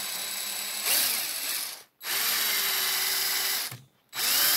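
Cordless drill with a high-speed steel bit drilling out a metal rivet in a model's base, run in short bursts. It stops about 2 seconds in, starts again with a rising whine, stops near 4 seconds and starts once more just before the end.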